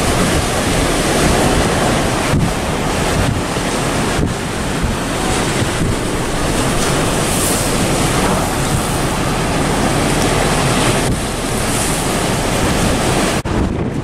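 Strong, gusty wind buffeting the microphone over the rush of choppy lake waves.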